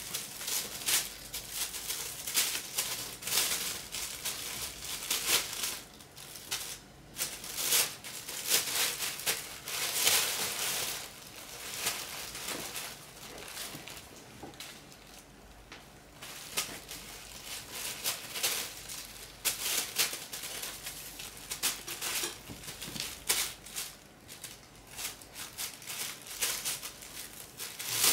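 Thin plastic bag crinkling and rustling in irregular bursts as a Burmese kitten pounces, paws and rolls on it, with short lulls between flurries.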